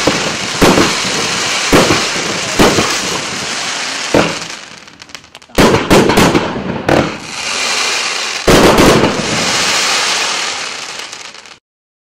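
Riakeo Vortex 6, a 21-shot 30 mm firework cake, firing. It opens with shots about a second apart, each bursting with crackle. After a short lull come two quicker volleys of bangs, the second followed by long crackling until the sound cuts off suddenly near the end.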